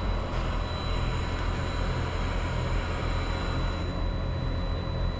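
Steady low rumble of an idling vehicle engine, with a thin, steady high-pitched whine running over it.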